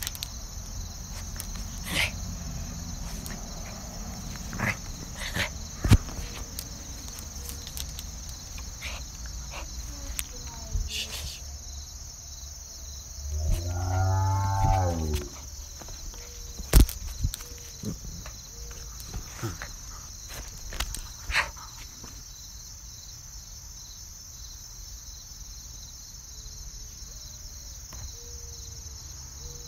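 Bacon sizzling in a pan: a steady high hiss with scattered sharp pops. About thirteen seconds in, a drawn-out call falls in pitch over about two seconds.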